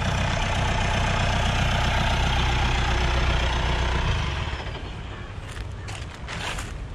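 Mahindra Bolero 4x4's diesel engine running steadily at low speed as the vehicle creeps down a dirt bank. It eases off and drops in level about four seconds in, followed by a few light crackles near the end.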